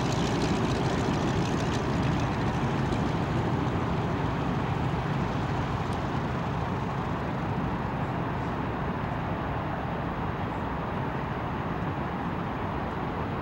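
Radial engine of a North American T-6 Texan trainer running at taxi power, a steady rumble that slowly fades as the aircraft taxis away.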